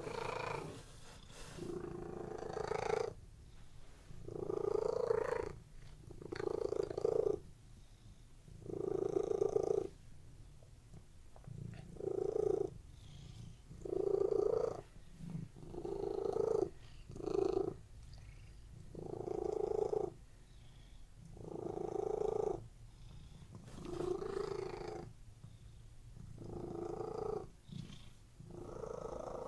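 Domestic cat purring, in regular swells that come about every two seconds with quieter gaps between.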